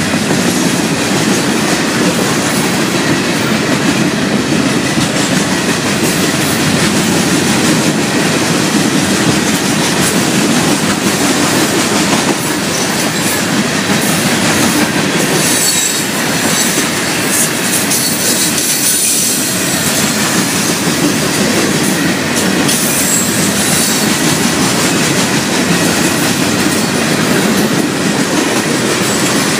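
Florida East Coast Railway freight train's hopper cars rolling past close by: a steady, loud noise of steel wheels running on the rails.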